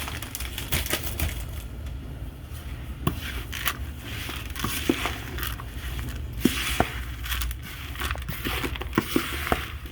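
Shredded cheese being worked into cubed chicken in a bowl: an irregular crinkling and crushing with scattered light clicks and knocks.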